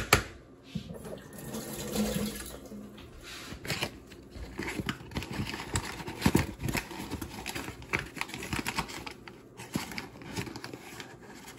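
Irregular light clicking and rattling of kitchen utensils and containers being handled, in uneven flurries that thicken in the second half.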